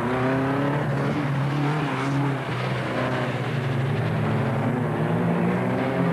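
Folkrace cars' engines revving hard on track, with a blue Saab 99 among them. The pitch climbs and drops again and again as they shift and lift through the corners, and more than one engine is heard at once.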